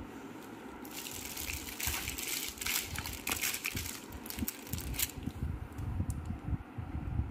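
Cellophane gift wrapping crinkling and crackling as it is brushed, starting about a second in and dying away around five seconds in, over low handling bumps.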